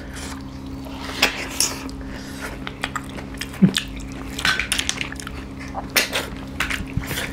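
Close-up eating sounds of people eating snail curry and rice by hand: fingers working rice against plates, chewing and smacking, with many short irregular clicks and small clatters. A faint low hum runs underneath.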